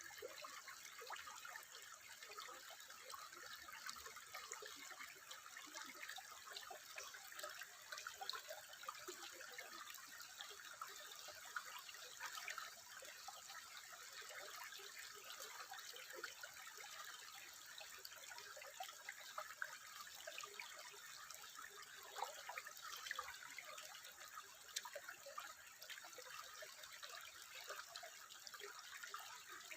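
Faint, steady trickling water, with a dense patter of small drips and splashes and no single large splash.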